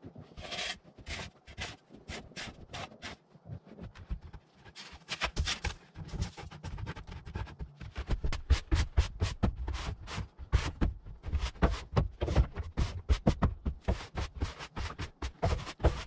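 Broom sweeping snow off a sawmill track and shed floor: rapid scratchy brushing strokes, several a second, getting louder from about five seconds in.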